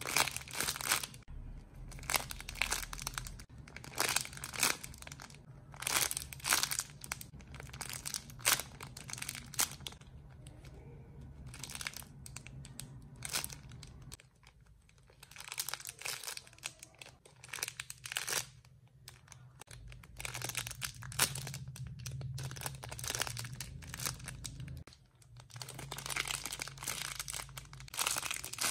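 Crinkling and rustling of wrapping as squishy toys are handled: irregular crackles, coming in clusters with short quieter spells.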